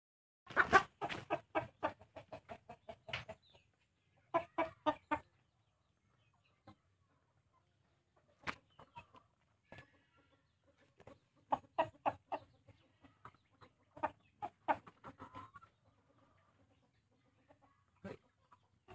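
Shamo chickens clucking: three runs of short, quick clucks at about four a second, with quiet gaps and a few single clucks between them.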